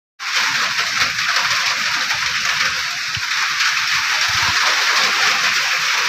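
Light rain falling, a steady even hiss that cuts in right at the start.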